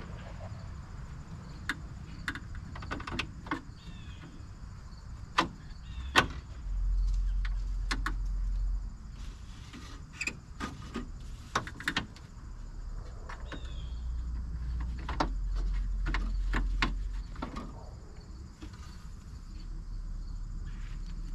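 Irregular clicks, clanks and rattles of power window regulator parts being handled and knocking against the sheet metal inside a bare car door shell. A low rumble swells up twice, about a third of the way in and again past the middle.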